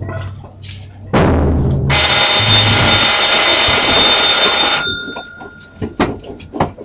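Procession band's drum stroke, followed by about three seconds of loud, continuous metallic ringing that stops suddenly, leaving one tone fading out; a few sharp knocks come near the end.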